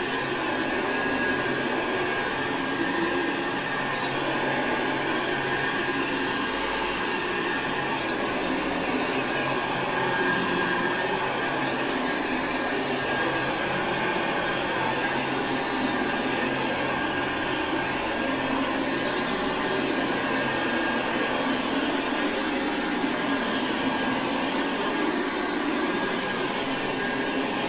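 1970 Hoover Convertible upright vacuum cleaner running steadily: an even motor and airflow rush with a thin steady whine on top.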